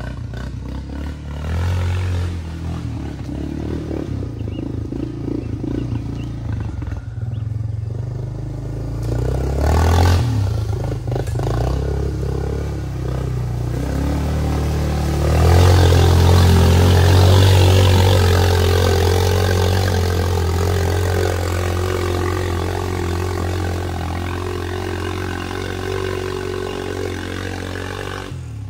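Quad ATV engine running and revving as it drives through a mud trail. The engine gets suddenly louder about halfway through, holds a steady note, then slowly fades toward the end.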